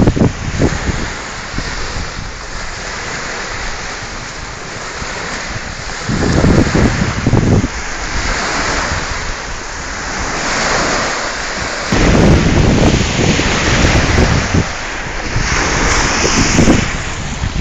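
Wind-driven lake waves washing onto the shore, with strong wind buffeting the microphone. The wind rumble swells about six seconds in and again for the last five or so seconds.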